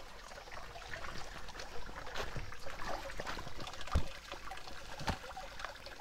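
Spring water trickling in a small rock hollow, with splashing as cupped hands scoop it up to drink; a sharp knock about four seconds in.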